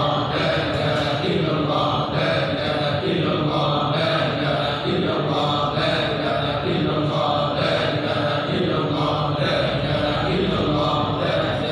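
Men's voices chanting Islamic dhikr together, repeating one short phrase about every two seconds.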